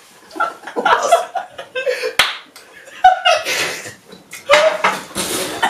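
Young men coughing, gasping and laughing in bursts as the Reaper chili sauce burns, with a sharp hand clap about two seconds in.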